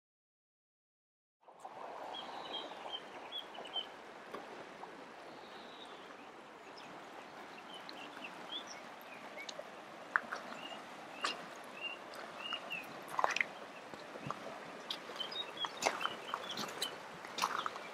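Shallow river running over stones: a steady rush of water, with small birds chirping and scattered sharp clicks. It starts after about a second and a half of silence.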